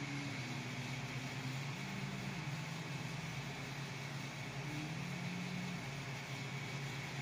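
Built-in electric oven running while it bakes: a steady hum and hiss, with a faint low hum that steps up and down in pitch now and then.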